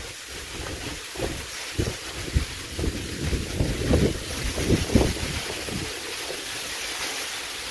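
Wind buffeting the microphone in irregular low gusts over a steady hiss.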